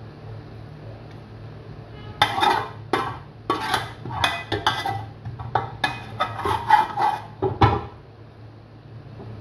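Metal serving spoon clinking and scraping against the cooking pan and a glass bowl as cooked karela is dished out. It is a quick, irregular run of sharp clinks from about two seconds in until shortly before the end, over a steady low hum.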